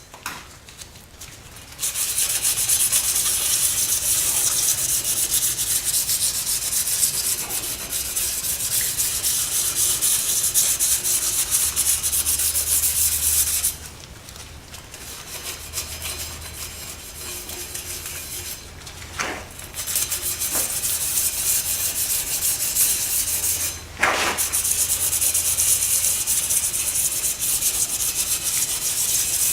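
A piece of 220-grit sandpaper scrubbed back and forth over a Yamaha YZF-R6's front brake disc, scuffing score marks into the surface for the new pads to bite into. It is a steady scratchy rasp that starts about two seconds in, stops for about five seconds midway apart from a couple of short scrapes, then resumes, with a brief break near the end.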